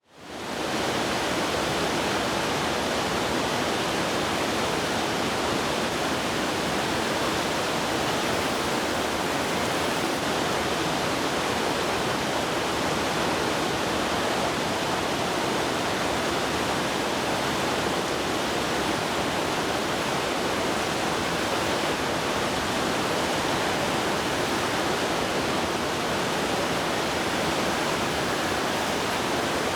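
Heavy rain pouring down in a steady, even rush, fading in at the start.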